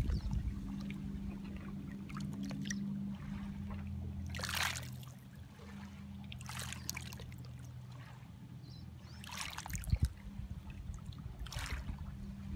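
Small lake waves lapping onto a pebble beach, a wash of water over stones every two to three seconds, over a steady low hum.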